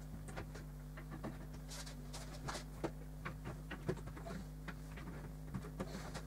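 Faint, scattered light taps and clicks of hands handling the white wooden end panel of an IKEA Hemnes bed during assembly, over a steady low hum.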